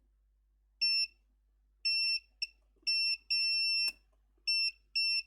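Multimeter continuity beeper sounding in a string of short, uneven beeps as the probes make and break contact, one held longer in the middle. The beeps show that the repaired connection to the new connector is continuous.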